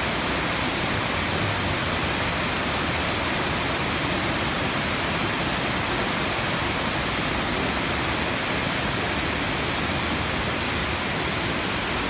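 Tiered waterfall rushing steadily over rocks: a constant, even hiss of falling water that does not change.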